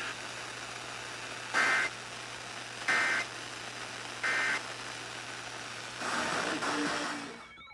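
Three short bursts of Emergency Alert System data tones, each about a third of a second and a little over a second apart, over steady broadcast hiss and a low hum. Their shortness fits the end-of-message code that closes an alert. Near the end the noise swells briefly, then the hiss cuts off.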